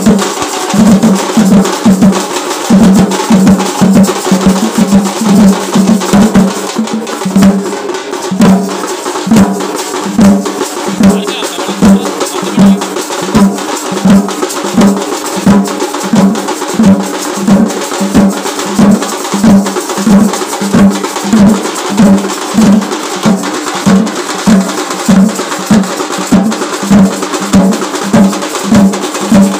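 Kavadi procession drumming: a troupe of drummers beating large stick-struck drums together in a steady, driving rhythm, with about two heavy beats a second and quicker stick strokes between them.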